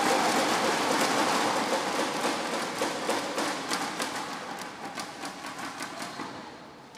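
Crowd noise in a large indoor hall, a dense wash of cheering and clapping, fading away over the last few seconds. Scattered sharp taps are heard near the middle.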